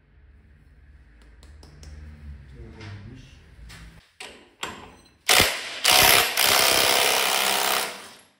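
Impact wrench loosening bolts on a scooter's variator cover: a short burst, then a longer run of about two seconds, after some quieter clicks and knocks of tools.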